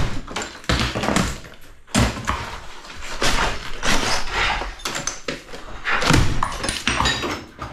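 Wall sheeting being pulled and torn off a steel stud wall frame by hand: an irregular run of knocks, thuds and scraping as the board breaks away and debris falls.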